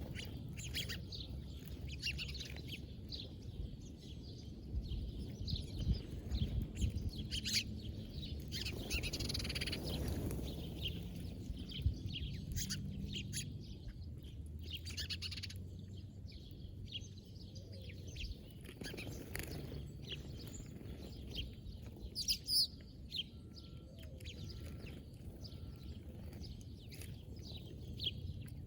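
Small birds chirping: many short, quick chirps and calls scattered throughout, over a steady low rumble.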